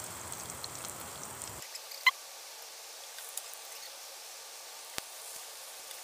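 Corn cakes sizzling in hot oil in a frying pan, a steady faint hiss. A short high squeak comes about two seconds in, and a single click near the end.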